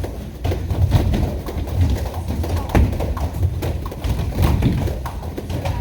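Irregular thuds and footfalls on gym mats as people move and drill, several soft impacts a second.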